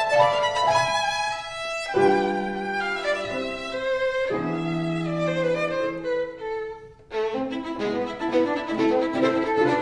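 Background instrumental music with a melodic lead and long held notes, briefly dipping about seven seconds in before carrying on.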